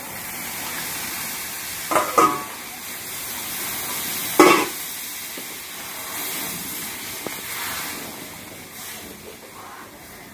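Water poured into hot roasted flour and sugar for halwa in an iron kadhai over a wood fire, sizzling and hissing as it is stirred with a steel ladle. Two brief louder knocks come about two seconds in and near the middle, and the sizzle dies down toward the end.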